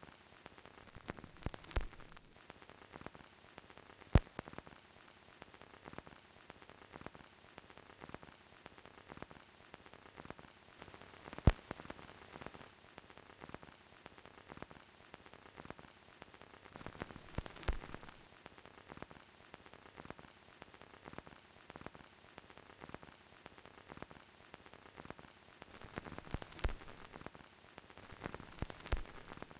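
Faint crackle and hiss with a few louder pops, like the surface noise of a worn old film soundtrack.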